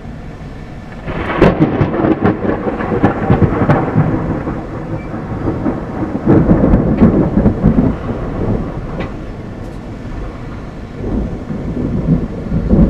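Thunder: a sharp crack about a second in, then a long rolling rumble with crackles that swells again around six seconds in and near the end.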